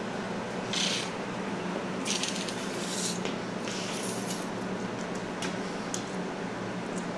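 A steady low hum, with a few short rustling hisses and faint clicks of something being handled over it.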